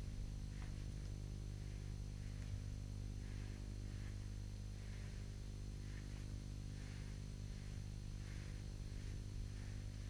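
Steady low electrical hum, with faint soft swishes of strokes being drawn across paper, about two a second, as the long wing-feather lines are laid down.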